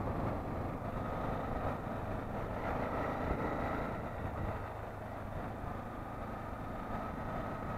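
Honda motorcycle engine running at a steady pace while riding, mixed with wind and road noise.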